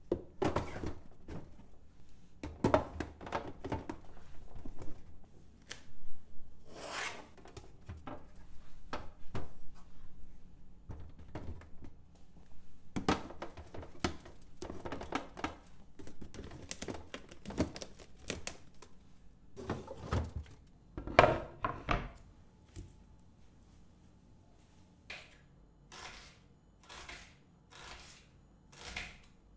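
Kitchen food-preparation sounds: irregular knocks and thunks of utensils and food being handled on a worktop, with a few louder knocks partway through and a run of evenly spaced strokes, about one and a half a second, near the end.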